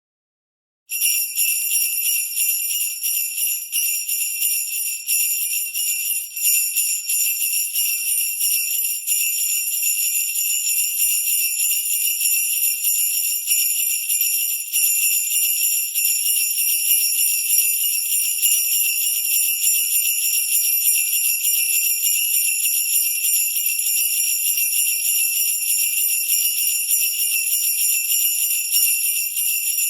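Sleigh bells shaken without pause in a steady, dense jingle, starting about a second in.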